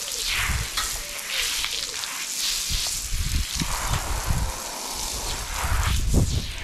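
Hose spray nozzle hissing as a jet of water is played over a horse's wet coat and legs, the hiss swelling and fading as the spray moves. Low rumbling thumps come and go underneath.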